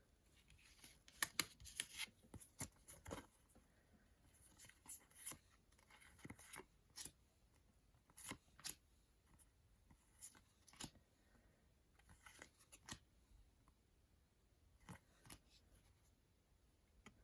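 Faint rustling and clicking of trading cards and sticker packets being handled, in scattered short bursts.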